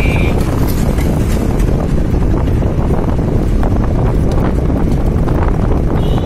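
Wind buffeting the microphone over the rumble of a moving vehicle on the road. A horn honk trails off about a quarter second in, and a short horn toot sounds near the end.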